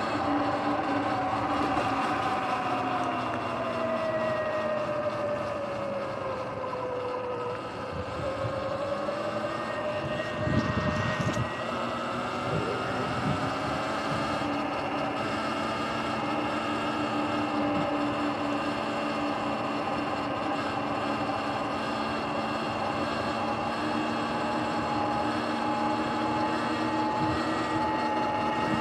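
Sur-Ron electric bike's motor and drivetrain whining while riding, the pitch dropping as it slows over the first several seconds and then climbing again as it picks up speed, over a steady rush of wind and tyre noise. A few knocks about ten seconds in.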